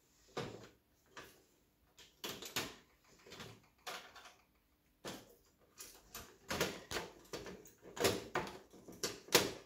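Plastic laptop casing (Fujitsu AH540) clicking and knocking as the screen lid assembly is handled and worked loose from the base at its hinges. The clicks and knocks are irregular, sparse at first and busier and louder in the second half.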